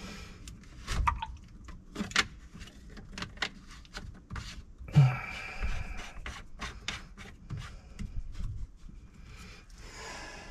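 Small clicks and knocks of parts and tools being handled, with a louder knock and a short scrape about five seconds in.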